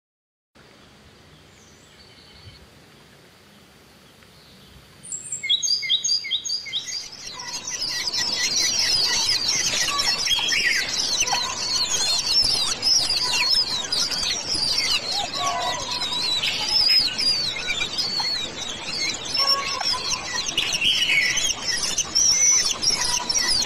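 Many small birds chirping and twittering together in a dense, continuous chorus of short, high calls. It starts about five seconds in with a quick run of repeated calls, after a few seconds of faint hiss.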